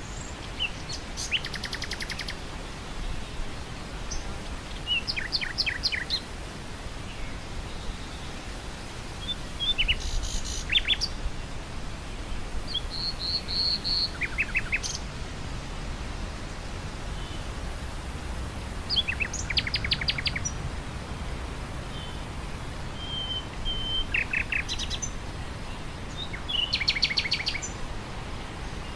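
Nightingale singing in short phrases of rapid repeated notes, some with a held whistle, about seven phrases a few seconds apart, over a steady rush of wind through grass.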